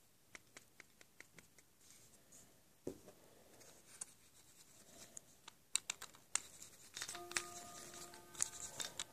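Faint clicks and scratchy rubbing of a plastic pinewood derby wheel being tapped and turned by hand on its axle, working dry graphite into the wheel bore, with a single thump about three seconds in. The clicking and rubbing grow busier over the last three seconds, with a few faint steady tones.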